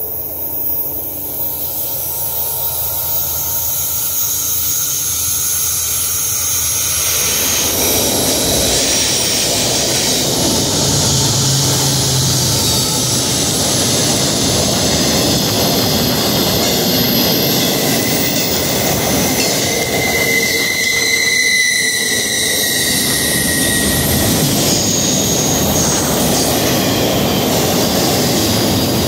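Florida East Coast Railway intermodal freight train arriving and running past at speed, growing louder over the first several seconds and then a loud, steady noise of wheels on the rails as the piggyback trailer flatcars and double-stack container cars go by. Thin high-pitched wheel squeals ring over it at times.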